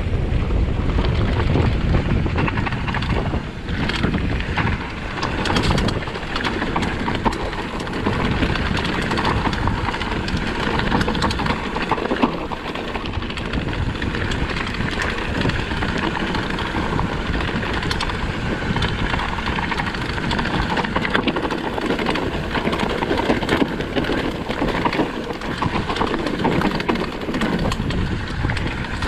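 Mountain bike descending a rough trail: wind buffeting the action camera's microphone over continuous tyre noise, with frequent knocks and rattles from the bike over bumps.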